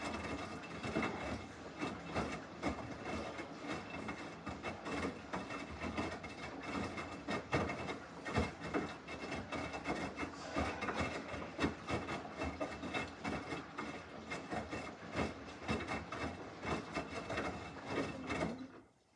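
Samsung washing machine drum turning during the wash, with wet clothes tumbling and sloshing in a dense, irregular clatter. It stops abruptly near the end as the drum pauses.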